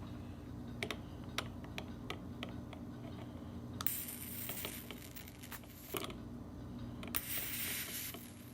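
Handling clicks, then a flameless electric arc lighter firing twice: a hissing, crackling buzz of about two seconds, then a shorter one of just over a second.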